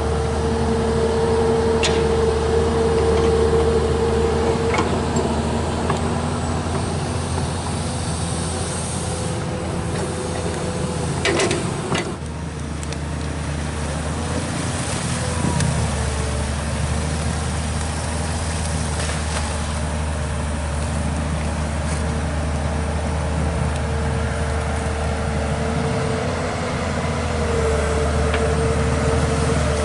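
Komatsu PC200 long-arm excavator's diesel engine running under working load, with a steady whine over the engine that shifts a little in pitch as the arm moves. A short knock about 11 seconds in.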